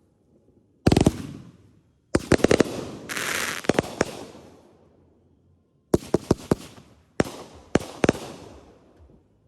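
Consumer aerial fireworks going off: groups of sharp bangs from bursting shells, each fading away, with a stretch of dense crackling hiss about three seconds in.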